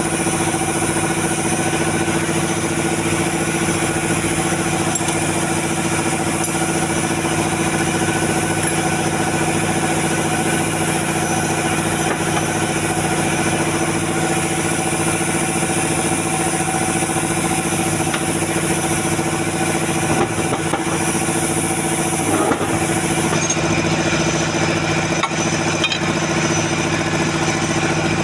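An engine idling with a steady, unchanging hum. The high hiss above it drops away about 23 seconds in.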